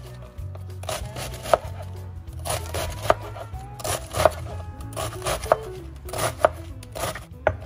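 Knife slicing through a head of cabbage into thin strips, each stroke ending in a sharp tap on a plastic cutting board, about once a second. Background music plays underneath.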